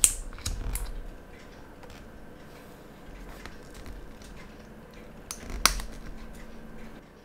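Small metal clicks and taps from fitting a spring bar between a steel watch case's lugs and the bracelet end link: a sharp click at the start, a few lighter ones within the first second, and another cluster about five and a half seconds in.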